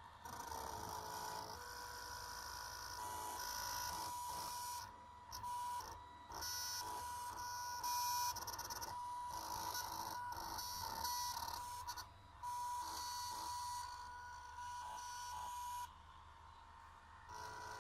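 Stepper motors from old DVD drives in a small CNC drawing machine, whining as they drive the pen, starting, stopping and changing pitch with each move, with a few short pauses.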